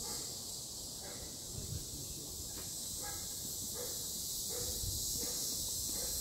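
Outdoor ambience: a steady high hiss runs throughout, with faint, irregular soft thuds underneath.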